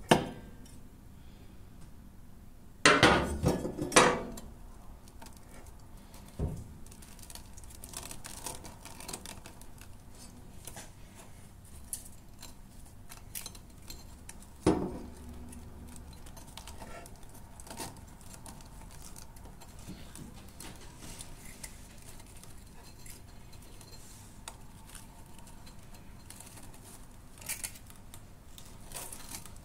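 Hands working under a tipped-up lawn mower deck, clearing string and old grass from around the blade and spindle: scattered small clinks and scrapes, with a cluster of louder knocks about three seconds in and one more sharp knock near the middle.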